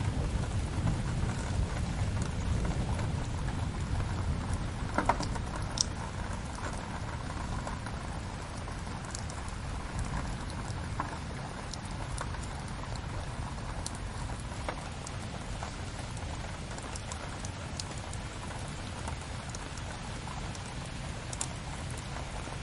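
Layered rain and fireplace ambience: steady rain with scattered sharp crackling pops from the fire. A low rumble fades away over the first few seconds.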